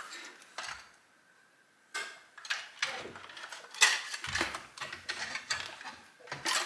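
Scattered clicks, taps and knocks of hand tools and chainsaw parts being handled while the front handle is worked loose, with a short silent pause about a second in.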